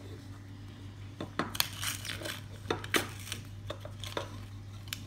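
Plastic toy packaging being handled and opened: a run of irregular clicks and short crinkling rustles starting about a second in, over a steady low hum.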